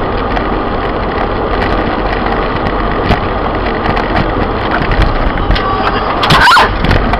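Steady road and engine noise inside a moving car on a wet road, with scattered small ticks. About six seconds in a truck passes extremely close alongside, with a sudden loud burst of noise lasting under half a second.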